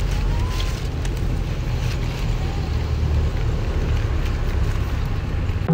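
Steady outdoor street ambience: an even low rumble with a hiss of background noise.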